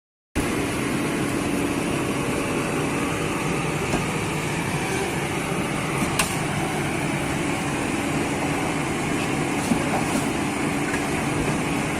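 Diesel engine of heavy machinery running steadily at an even speed.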